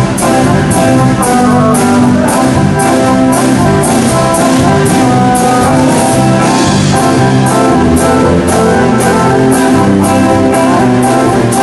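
Band music: guitar or other plucked strings over a drum kit, with a steady beat of cymbal strokes about twice a second.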